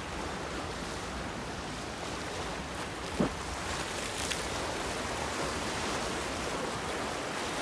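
Steady wash of sea surf, with one short knock about three seconds in.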